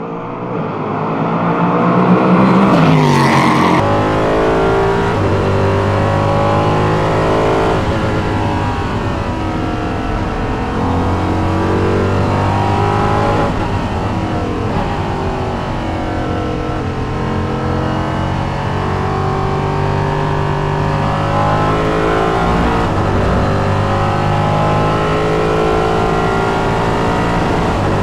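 Ligier JS P320 LMP3 prototype's Nissan V8 at racing speed, its pitch climbing through the gears and dropping again under braking, over and over. There is a loud rising-and-falling sweep about three seconds in.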